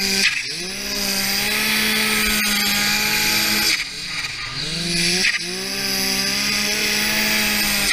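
Snowmobile engine held at high revs while riding through deep powder, easing off briefly about four seconds in and revving back up to a steady pitch.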